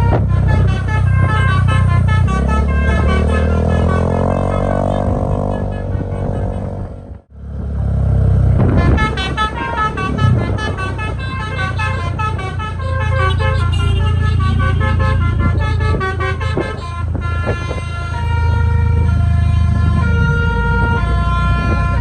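A bus's multi-tone Basuri telolet horn playing a quick stepping tune, with the diesel engine running low underneath. The sound breaks off abruptly about seven seconds in, then the tune resumes.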